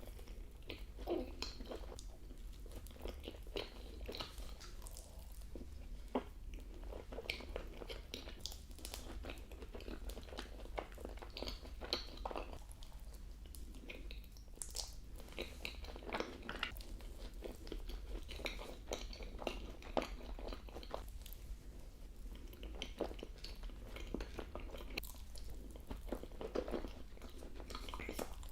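Close-miked eating of profiteroles: chewing, biting and small crunches, with irregular mouth clicks and smacks over a steady low hum.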